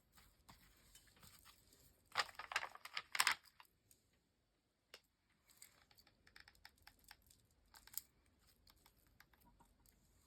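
Paper and craft supplies being handled on a work surface: scattered rustles, taps and small clicks, with a louder stretch of rustling or scraping about two to three and a half seconds in.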